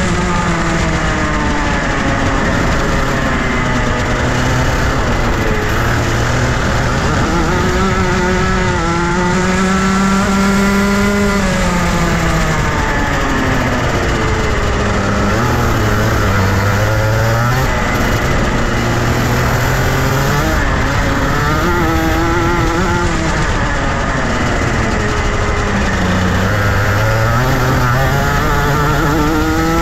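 Junior Rotax 125cc single-cylinder two-stroke kart engine running hard, its pitch climbing and falling again and again as the kart speeds up and slows down around the track.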